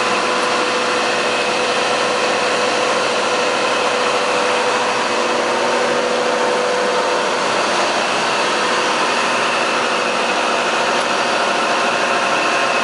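Concrete reclaimer plant machinery running: a loud, steady mechanical drone with several steady tones over it. A mid-pitched hum among them fades away about two-thirds of the way through.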